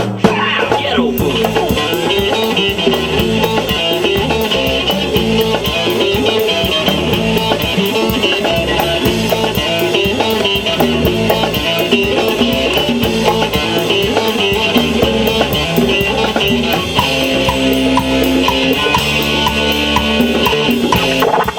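Band music playing at full level: a drum kit keeping a steady beat under bass and guitar lines.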